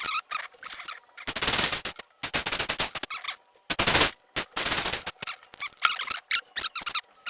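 An old drill boring screw holes in a wooden rifle stock, run in four short bursts of rapid rattling in the first five seconds, with high wavering squeaks between and after the bursts.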